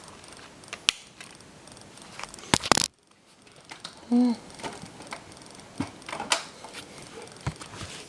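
Plastic DVD case being handled and opened: scattered clicks and rustles, with a louder crackling burst about two and a half seconds in that cuts off abruptly.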